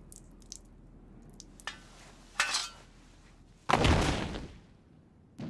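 Sound effects from an anime scene: a few light metallic clinks and ticks, then a sudden loud hit a little before four seconds in that dies away over about a second.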